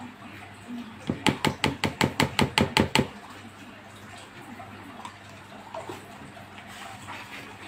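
A plastic cup of thick coconut milk knocked over a plastic mixing bowl to shake the milk out: a quick run of about a dozen sharp knocks, some six a second, lasting about two seconds. Faint handling sounds follow.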